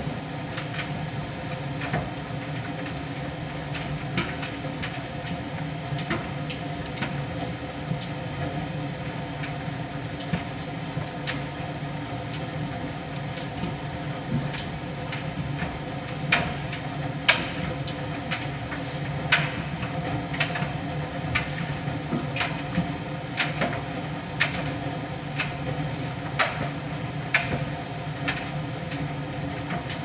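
Miele PT 5136 tumble dryer running mid-cycle: a steady hum from the motor and turning drum, with irregular sharp clicks and knocks that come more often and louder in the second half.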